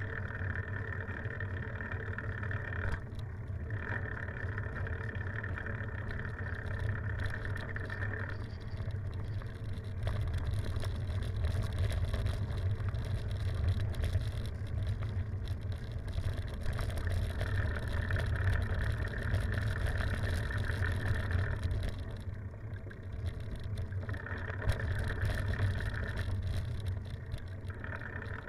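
Riding noise of a bicycle on a rough village road: tyres rolling with a steady low rumble, and a higher buzz that comes and goes in several stretches of a few seconds each.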